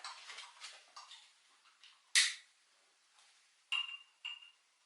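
A candle being lit: a single short, noisy strike about two seconds in, then two brief, light glass clinks close together near the end.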